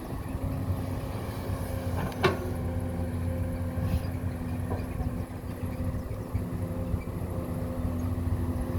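Heavy earthmoving machine's engine running steadily, with one sharp metallic clank about two seconds in.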